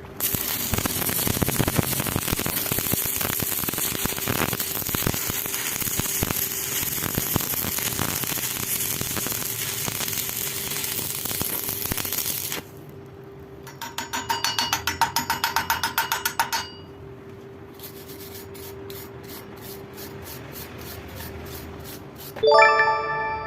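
Stick (arc) welding: the electrode's arc crackling and sizzling steadily for about twelve seconds, then stopping. It is followed by a quick run of metallic taps, about eight a second, and a single ringing metal strike near the end, with a steady hum underneath.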